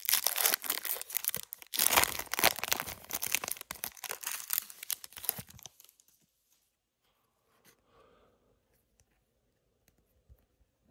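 A trading card pack wrapper from a 2023 Topps Chrome Update hobby box being torn open and crinkled by hand. The tearing and crinkling runs for about five and a half seconds, then stops, leaving only faint scattered handling sounds.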